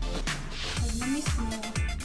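Background music with a steady electronic beat, a deep kick drum about twice a second under a synth melody.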